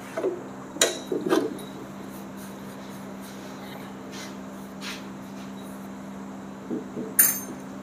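Metal clinks and knocks of engine main bearing caps being handled and set over the crankshaft in the block: a few sharp clinks about a second in, and the loudest one near the end, over a steady low hum.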